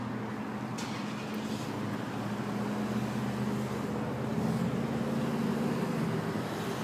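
Dodge Challenger R/T's V8 idling steadily through its dual exhaust, a little louder for a few seconds in the middle before settling back near the end.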